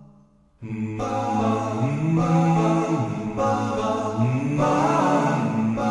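Background song: after a brief hush, wordless sustained vocals with slowly gliding notes over the music.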